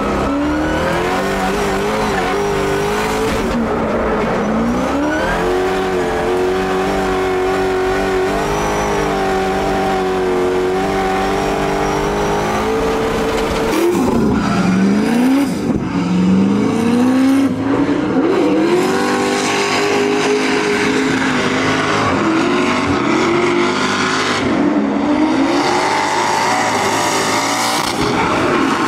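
An 1100 whp Corvette drift car's engine revving up and falling back again and again as it slides through a drift, with tyres squealing. It is heard from inside the cabin at first, then from trackside from about fourteen seconds in.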